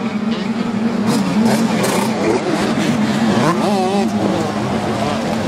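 125cc motocross bikes racing, their engines revving up and down as the riders work the throttle, with a wavering rise and fall in pitch about three and a half seconds in.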